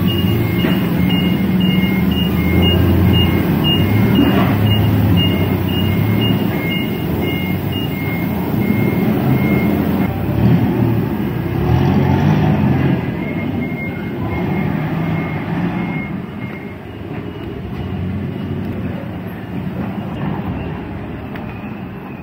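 Forklift backup alarm beeping at an even pulse about twice a second over a low engine rumble. The beeping stops about eight seconds in, returns briefly around the middle, and the rumble fades toward the end.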